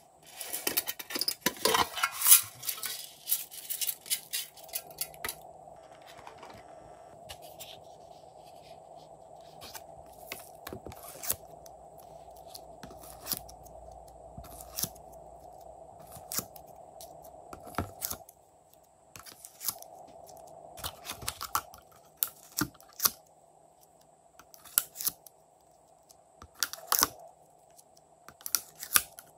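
A thin plastic blister tray crackling and clicking as soft blue clay discs are pressed out of it by hand. A dense run of crackles comes in the first few seconds, then single sharp clicks follow, over a faint steady hum.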